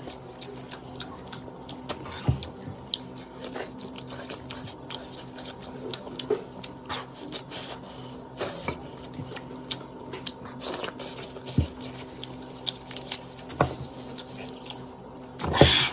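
Close-miked eating sounds: scattered wet clicks and smacks of a person chewing, with a louder burst, like a slurp, near the end, over a faint steady hum.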